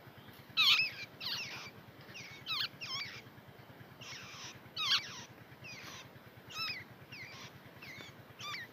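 Nestling songbirds begging from the nest with gaping mouths: about a dozen short, squealing calls that sweep up and down in pitch, at irregular intervals.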